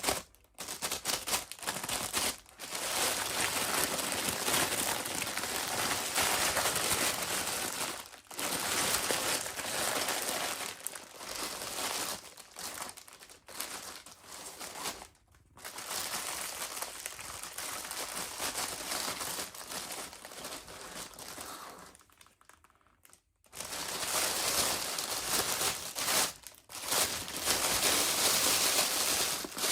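Packaging crinkling and rustling as it is handled and opened, in long stretches broken by short pauses and a longer lull about 22 seconds in.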